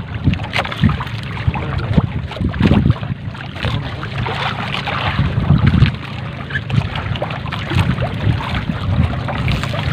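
A trammel net being hauled by hand over a boat's side, with water splashing and dripping off the mesh in many small splashes. A steady low rumble from the boat and wind on the microphone run underneath.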